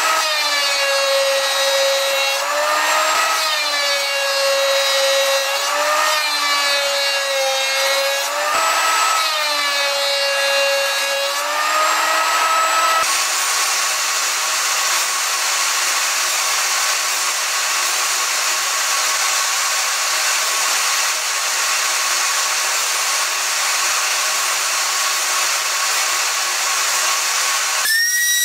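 Electric power tool motor working pine wood, its whine rising and falling in pitch every few seconds as the load changes. About halfway through it turns to a steadier, hissing sound.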